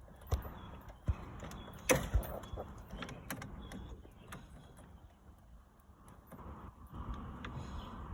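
Irregular clicks, knocks and rattles as a screwdriver is worked against the plastic electrical plugs of a radiator cooling fan to release them, with the sharpest knock about two seconds in.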